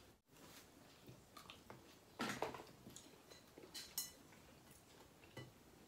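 Faint tableware sounds of people eating: cutlery and fingers on plates, with a short scrape about two seconds in and a clink with a brief ring from a plate or glass about four seconds in.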